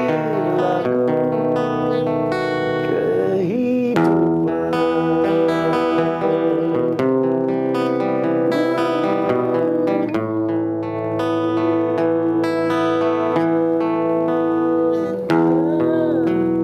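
Acoustic guitar playing sustained strummed chords that change every few seconds, with a man's voice singing held, wavering notes in places.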